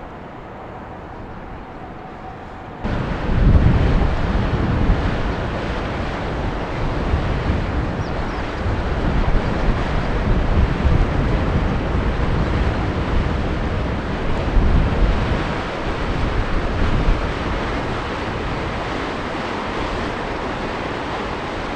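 Wind buffeting the microphone: loud, gusty rushing with heavy low rumble, starting suddenly about three seconds in. Before that there is a quieter steady background with a faint hum.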